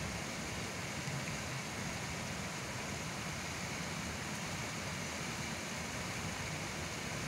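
Steady hiss of water splashing from fountain aerators spraying across a fishing pond, over a low rumble.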